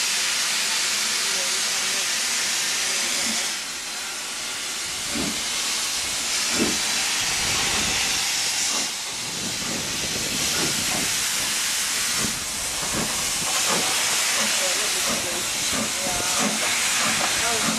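Steady loud hiss of steam escaping from a BR Standard 9F 2-10-0 steam locomotive, No. 92203, standing at rest. The hiss drops back briefly a few times.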